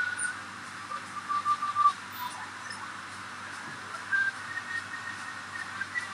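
Steady hiss of rain, with strings of short, high whistle-like notes: a quick run of them about a second in and another near the end.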